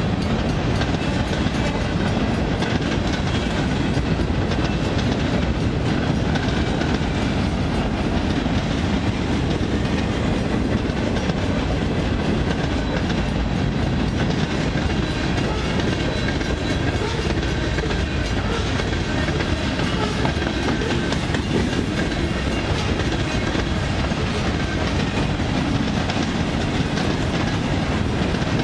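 Freight cars of a passing freight train rolling by: a steady rumble and clatter of steel wheels on the rails, unchanging throughout.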